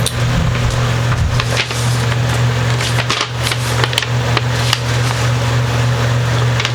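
Handling of a paper wiring diagram and the pickup's packaging: irregular light clicks and rustles over a steady low electrical hum.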